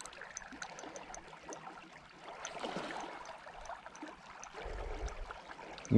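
Spinning reel being cranked while a hooked asp is played, a faint regular ticking over the soft wash of river water and low handling rumble.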